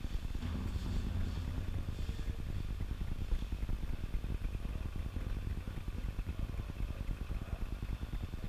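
A motor vehicle engine running, heard as a low rumble with a hum that is strongest in the first couple of seconds.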